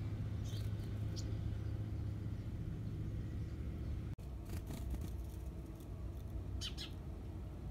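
A steady low rumble like distant machinery or an engine, with a few short, high bird chirps over it: two in the first second and a half, and a few more in the second half.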